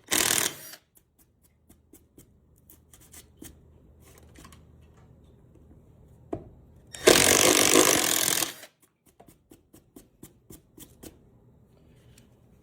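Power drill boring holes in the workbench top, stepping up through drill-bit sizes: one run stops about half a second in, and a second run of about a second and a half starts about seven seconds in. Scattered light clicks and knocks fill the gaps between the runs.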